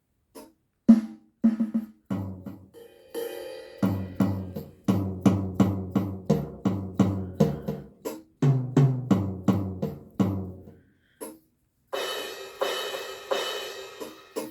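Electronic drum-kit sounds triggered by Aeroband Pocket Drum air-drumming sticks, played one-handed: an irregular run of separate drum hits, with a denser stretch of cymbal hits near the end.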